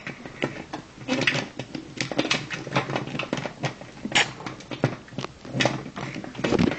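Quick, irregular clicks and taps of small hard plastic toy animal figures knocked and walked across a hard surface.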